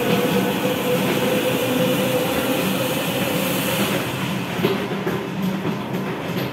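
Steam injection of a commercial deck oven hissing into the baking chamber over a steady low machine hum, the hiss dying away about four seconds in.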